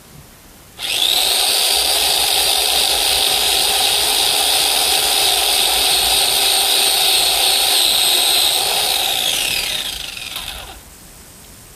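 Electric chainsaw cutting wood: the motor starts with a high whine about a second in and runs steadily for about eight seconds, then winds down with a falling pitch and stops near the end.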